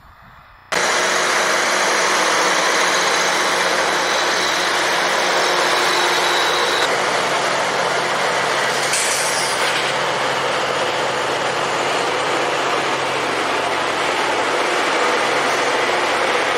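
Rail grinding train at work, its grinding stones running against the rails: a loud, steady grinding noise over an engine drone, starting suddenly about a second in.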